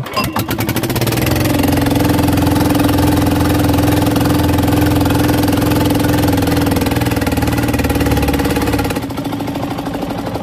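Small fishing-boat engine catching suddenly and running loud and steady with a rapid even beat, dropping a little lower near the end. It had been failing to run, which the crew put down to moisture in the fuel tank.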